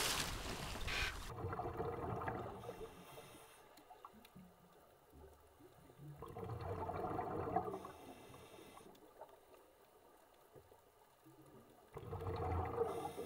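A diver splashing into the sea at the start, then underwater gurgling of scuba exhaust bubbles from a diver's regulator, swelling and fading three times about five seconds apart as the diver breathes out.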